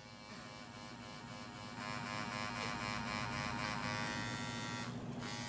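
Tattoo machine buzzing steadily as its needle shades red ink into skin, growing a little louder over the first two seconds.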